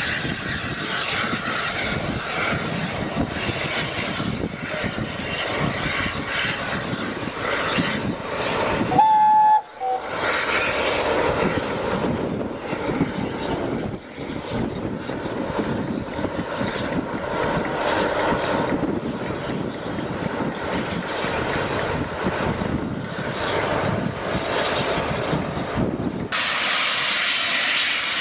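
Steam-hauled train running by, a continuous rush and rumble from the locomotive and its carriages. A short whistle blast sounds about nine seconds in.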